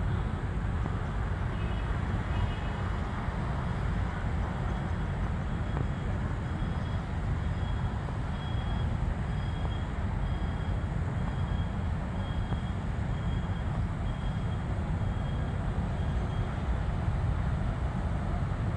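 Steady low outdoor rumble, with faint short high notes repeating about once a second through the middle.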